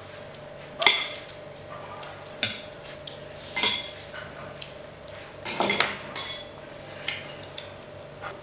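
Metal spoons and a fork clinking against glass and ceramic bowls and plates while eating: about seven separate sharp clinks. A faint steady hum sits underneath.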